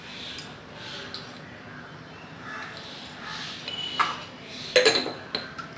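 Quiet kitchen handling sounds as salt is spooned into a steel mixing bowl. A sharp click comes about four seconds in, then a short clatter of knocks near five seconds, as a jar is handled and set down on the stone counter.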